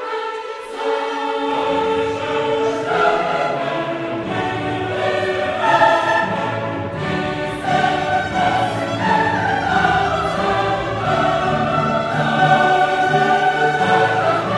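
Background music: a choir singing held notes with an orchestra, and the low parts coming in about a second and a half in.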